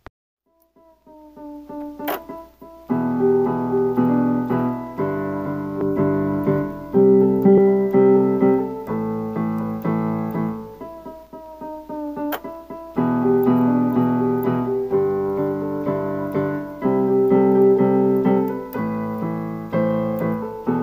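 Outro music on piano-style keyboard. It starts softly after about a second of quiet with a few notes, then moves into full held chords that change roughly every two seconds. A short bright swish comes twice, about two seconds in and again about midway.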